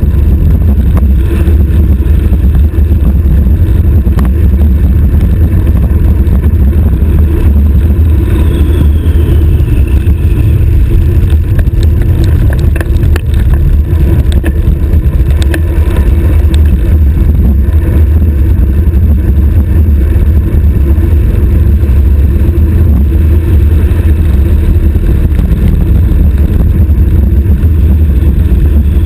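Loud, steady wind rush buffeting a stem-mounted GoPro's microphone as a road bike descends at high speed.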